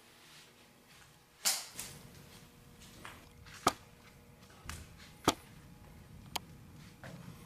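Several sharp clicks and knocks at uneven intervals over quiet room tone; the loudest come about a second and a half in and about five seconds in.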